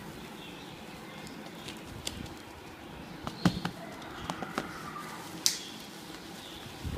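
Birds calling faintly in the background, with a few sharp clicks or knocks; the loudest come about halfway through and about two-thirds of the way through.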